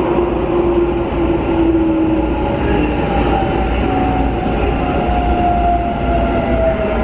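Keikyu New 1000 series electric train heard from inside the car: a steady rumble of wheels on rail under the whine of its Mitsubishi IGBT-VVVF inverter and traction motors, which slowly falls in pitch as the train slows.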